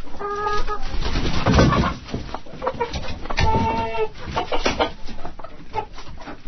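Hens clucking in a hen house, a busy run of short clucks with two longer drawn-out calls, one about half a second in and another about three and a half seconds in.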